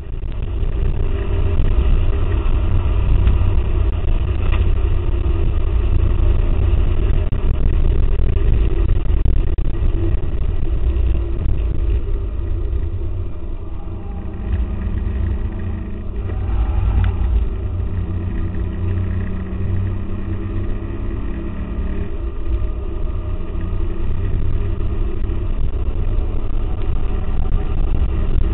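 Interior sound of a 2004 Mustang GT's 4.6-litre V8 at racing speed, running hard under load with heavy road and wind noise. The sound is boomy and muffled, with the typical bad sound quality of a GoPro Hero. The engine note rises and falls a few times about halfway through.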